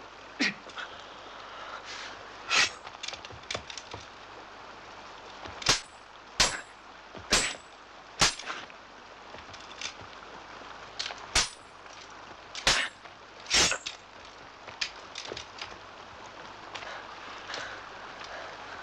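Swords clashing in a duel: about a dozen sharp metal strikes at irregular intervals, over the steady rush of a mountain river.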